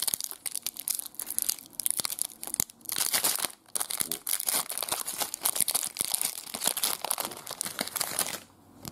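Foil wrapper of a trading card pack being torn open and crinkled by hand: a dense run of sharp crackling and tearing that stops shortly before the end.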